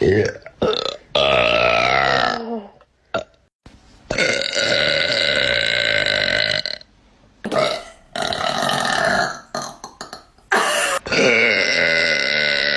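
A girl burping deliberately, a series of about five long, drawn-out burps with short pauses between them; the longest lasts about three seconds.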